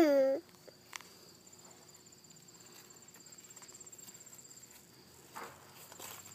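Insects trilling steadily in the background, a faint, high-pitched pulsing trill. Right at the start comes a brief, loud, falling vocal sound.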